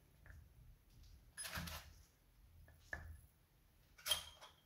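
Steel hex-head lag screws handled and set down on a wooden block: a few faint clinks and taps, the sharpest about four seconds in.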